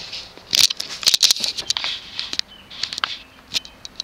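Handling noise: an irregular run of sharp clicks and taps mixed with short rustles, bunched between about half a second and three and a half seconds in.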